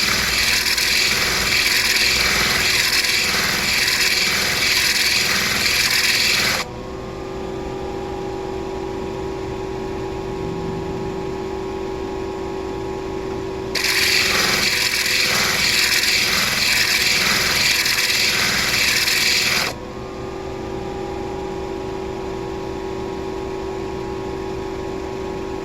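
A stone being sanded on a motor-driven grinding wheel: two spells of loud, rhythmic grinding as the stone is pressed to the wheel, each about six seconds long, with the wheel's motor humming steadily while the stone is lifted off.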